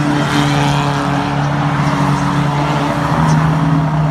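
Several banger racing cars running around the track and passing close by, their engines giving a loud, steady drone.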